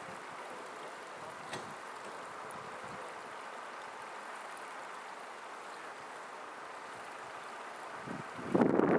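Steady outdoor hiss, then about 8.5 seconds in, loud uneven gusts of wind buffeting the microphone.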